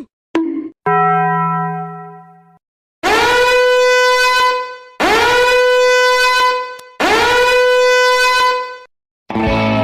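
A meme sound effect: a loud horn-like note blown three times in a row, each about two seconds long at the same pitch, scooping up into the note at the start of each blast. Before the blasts come a couple of brief sounds and a short ringing tone that fades out.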